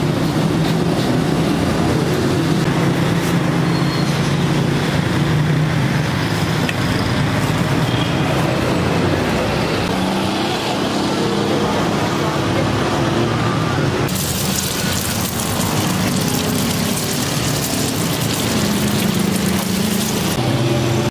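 Busy street traffic: motor vehicle engines running with a steady hum and road noise, getting brighter and louder from about two-thirds of the way in.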